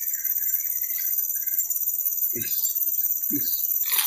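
Steady high-pitched drone of forest insects, with a lower wavering chirring under it. Three short sounds stand out over it, about two and a half, three and a half and four seconds in.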